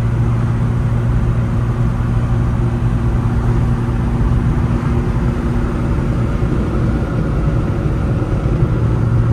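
Inside the cabin of a 1964 Morris Mini 850 at a steady cruise: the 848 cc A-series four-cylinder engine and its larger-bore exhaust give a steady drone, over tyre and road noise.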